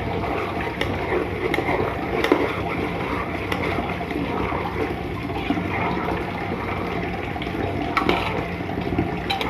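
Water being poured into a kadhai of fried chicken pieces, a steady gushing with a few sharp clicks scattered through it.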